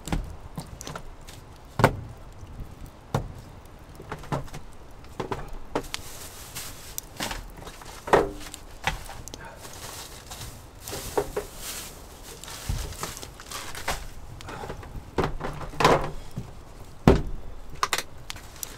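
Rummaging in a portable chest fridge: its wire food basket is lifted out and handled, with irregular knocks, clinks and rattles and some rustling of packaging.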